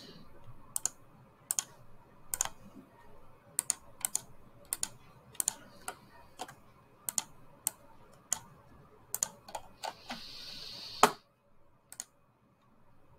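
Computer mouse and keyboard clicks: irregular sharp clicks, often in close pairs, about one or two a second. About ten seconds in there is a second of soft hiss, ending in the loudest click.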